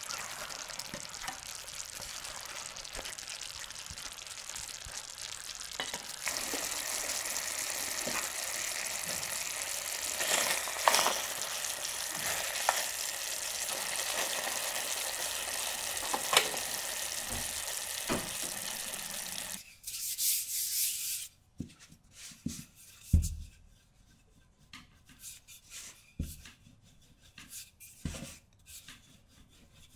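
Apple pieces cooking in caramel in a stainless-steel pan, sizzling steadily with the light scrape and tap of a spatula stirring them. About twenty seconds in the sizzling stops, giving way to soft knocks and rubbing of a wooden rolling pin rolling tart dough on a floured counter.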